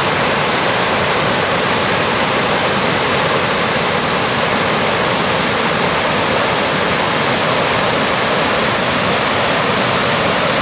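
Waterfall cascading over stepped rock ledges into a pool: a steady, loud rush of water.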